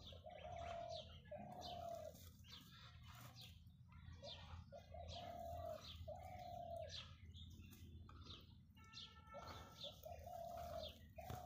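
Birds calling: one gives a repeated pair of even, mid-pitched notes, each note about half a second long, a pair every four or five seconds, while small birds chirp throughout.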